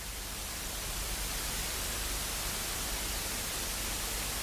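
Television static: a steady, even hiss of white noise with a low hum beneath it, growing a little louder over the first second.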